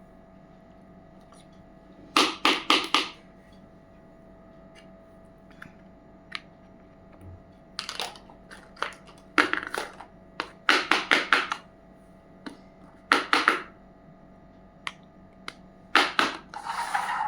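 Miniature plastic toy kitchen pieces and their packaging being handled in an unboxing: crackling and clicking in several short clusters with quiet gaps between.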